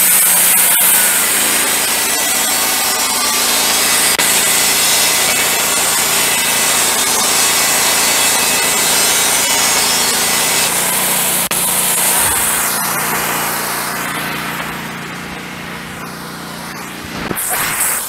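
Wood-Mizer LT15 Go portable bandsaw mill sawing through a hemlock log, the engine running steadily under load under the hiss of the blade cutting wood. It gets quieter about three-quarters of the way through, then louder again near the end.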